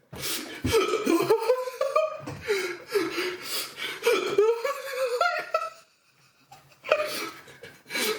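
A man in a laughing fit set off by a hiccup attack from very hot sauce. He laughs for about six seconds, pauses briefly, then breaks out laughing again near the end.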